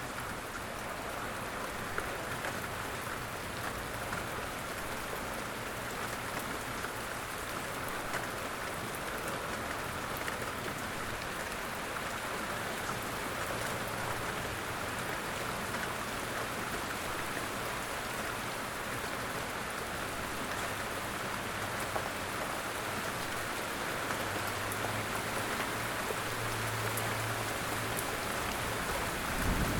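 Light rain falling steadily in woodland, an even patter with scattered single drops. A low hum joins in from about two-thirds of the way through.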